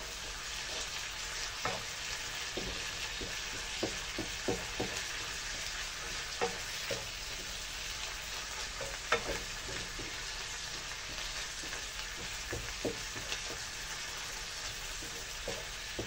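Lardons and sliced onions sizzling in a non-stick frying pan, with a wooden spatula scraping and knocking against the pan at irregular moments as they are stirred.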